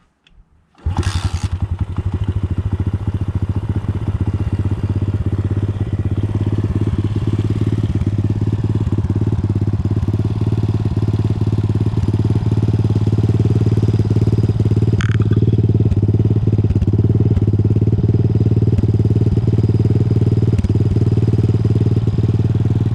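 Explorer 125 cc cross motorcycle's single-cylinder four-stroke engine starting about a second in and then idling steadily.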